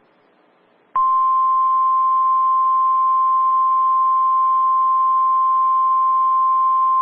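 After about a second of near silence, NOAA Weather Radio's 1050 Hz warning alarm tone comes on abruptly as one loud, steady, unbroken tone. It is sounding here for the weekly test of the Warning Alarm System.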